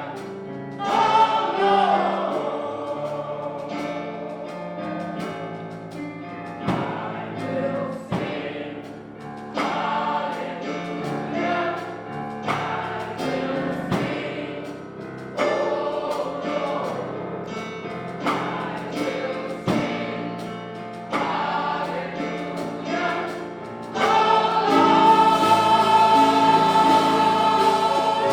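Gospel choir singing with instrumental accompaniment, in phrases of a second or two, ending on a long held chord near the end.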